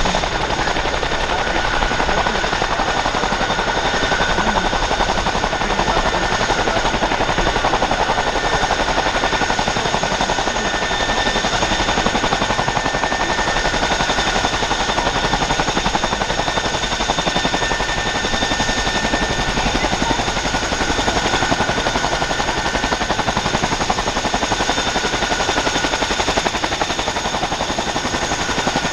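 Boeing CH-47F Chinook tandem-rotor helicopter running with both rotors turning: a loud, rapid, steady rotor chop with the high, steady whine of its twin turboshaft engines over it.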